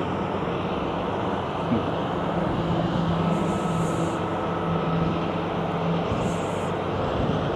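Steady road-traffic noise, with one vehicle's steady low engine hum standing out over it for a few seconds in the middle.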